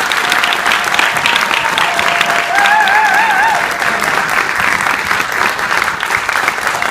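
Audience applauding at length after a speech, a steady dense clapping. About two and a half seconds in, a brief wavering whoop rises over the clapping for about a second.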